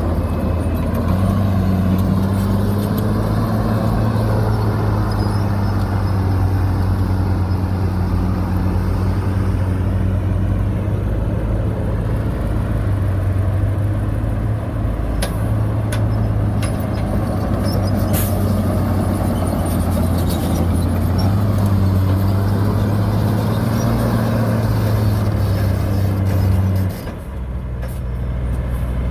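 Heavy diesel engine of earthmoving machinery running steadily, with a few sharp metallic clanks about halfway through; the engine note drops and changes near the end.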